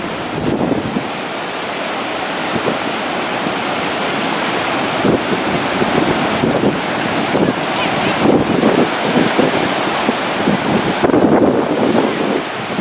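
Rough surf breaking in a continuous rush, with gusts of wind buffeting the microphone.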